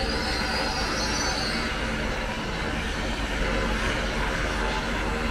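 Train running through a station: a steady rumble with a brief high squeal in the first second or two.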